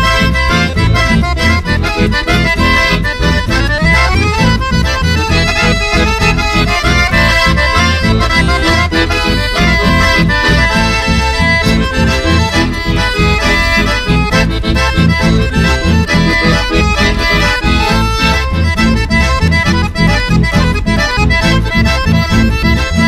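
Instrumental chamamé: piano and button accordions playing the melody over guitar accompaniment, with a quick rising run about three seconds in.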